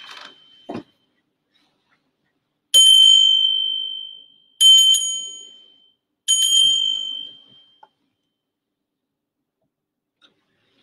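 Altar bell rung three times at the elevation of the chalice during the consecration. Each ring is a clear high tone dying away over about a second and a half. A soft thud comes just under a second in.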